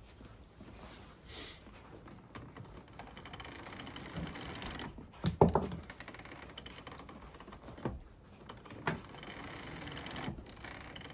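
Scattered light clicks and knocks of metal parts as a steering damper and its bracket are held against an ATV's steering stem and moved by hand, with the sharpest knock about five seconds in and two smaller ones a few seconds later.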